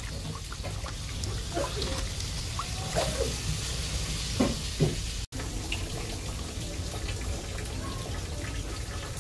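Water sloshing and splashing in a steel basin as pickled cucumbers are rinsed by hand and lifted out into a plastic basket, with a few small knocks. The sound breaks off suddenly about five seconds in.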